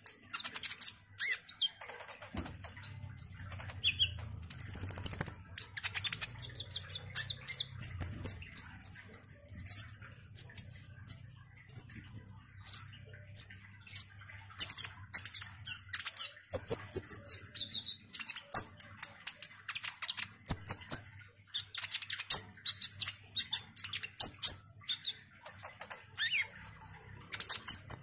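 Copper-throated sunbird (kolibri ninja) singing a fast, varied song of high-pitched chirps, twitters and short trills, with one drawn-out very high whistle about five seconds in.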